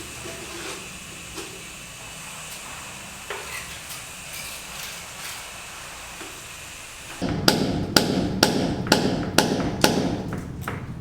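Steady background noise with a few faint taps, then, about seven seconds in, loud sharp knocks at an even pace of about two a second, like hammer blows.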